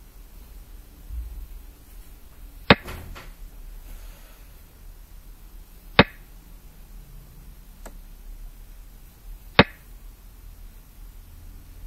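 Xiangqi move sound effect: three single sharp clacks of a piece being set down, about three and a half seconds apart, one for each move on the board.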